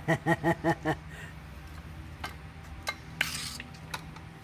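A person laughing in a quick run of about six short bursts in the first second. Then come a few light clicks and taps from a car shock absorber and coil spring being handled, and a brief hiss about three seconds in.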